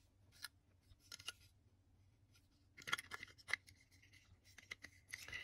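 Faint, scattered clicks and light scrapes of a small model locomotive and its packaging being handled, bunched about three seconds in and again near the end.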